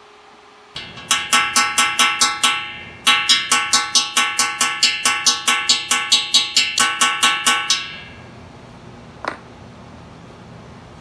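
Small hammer tapping a steel chasing tool against a cast bronze sculpture, about five or six ringing metallic taps a second in two runs with a short pause between: chasing a weld seam so the joined bronze sections blend into one surface. A single brief high tone follows near the end.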